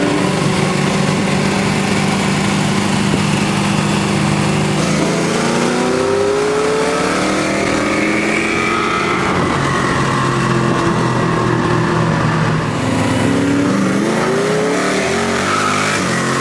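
Car engines heard from inside a car in slow traffic: a steady low drone, with revs rising and falling about five seconds in and again near the end.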